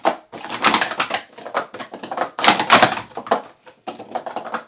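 Plastic sport stacking cups clattering in rapid runs of light clicks and knocks as they are stacked up into pyramids and brought back down by hand.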